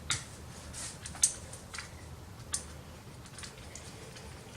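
A handful of sharp, separate clicks and taps of small hardware being handled, the loudest a little over a second in, as the hard drive is worked out of its mounting bracket inside an opened all-in-one PC.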